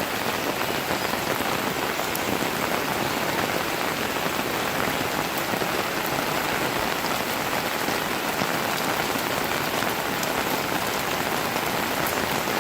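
Steady rain falling, with water pouring off the roof sheets.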